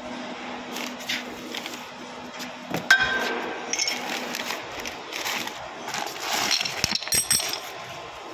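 Metal clinks and clatters as worn truck brake pads and hand tools are picked up and set down on a concrete floor, the loudest a ringing clink about three seconds in.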